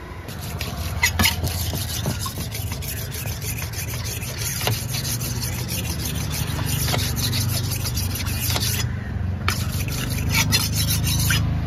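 A large fish knife being sharpened on a round sharpening stone: quick repeated strokes of steel scraping across stone, pausing briefly about nine seconds in, then starting again. A low steady rumble runs underneath.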